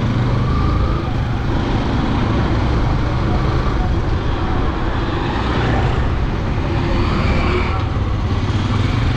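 Yamaha MT motorcycle riding through town traffic: a steady low engine and wind rumble picked up by a helmet-mounted camera, with the traffic around it.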